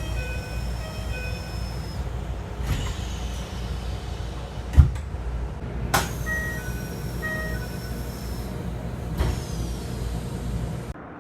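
Keikyu train door chimes: short electronic chime tones in a repeating pattern as the sliding doors work, each time with a high whine that falls slowly in pitch, over the low hum of the train. Several recordings are spliced together, with sharp clicks at the cuts.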